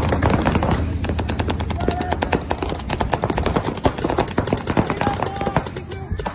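Paintball markers firing in rapid strings, many shots a second from several guns at once, as players trade fire across the field.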